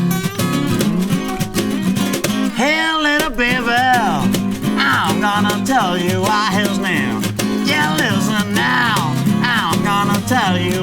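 Acoustic band playing a song's instrumental intro: strummed acoustic guitar, with a lead melody that bends up and down in pitch coming in about two and a half seconds in.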